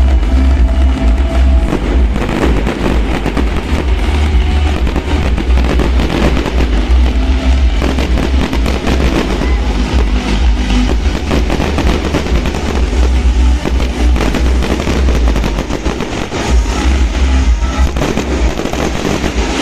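A fireworks display going off in a rapid, continuous run of bangs and crackles, over loud music with heavy bass.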